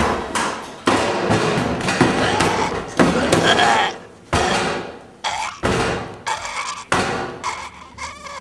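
A run of irregular bangs and thuds, about ten over several seconds, echoing off hard walls, as a person braced between metal toilet-stall partitions knocks against them.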